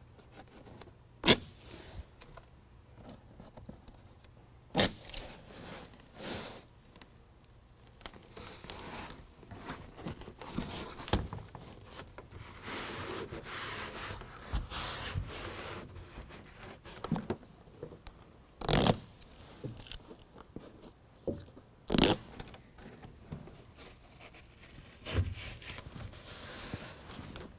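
Hook-and-loop (Velcro) fastener pieces being handled while a BedRug truck bed liner's foam-backed sidewall is pressed into place: a handful of short sharp rips and snaps as protective backing tabs are peeled and the fastener grips, with a stretch of hands rubbing and scraping on the liner in the middle.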